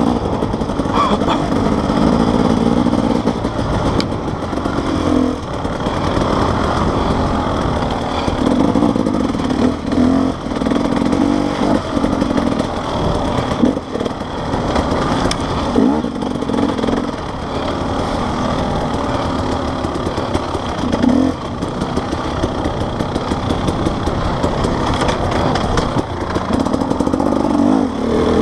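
Enduro dirt bike engine heard from the rider's on-board camera, its pitch rising and falling with the throttle as it rides, with a few knocks from the bike over the ground.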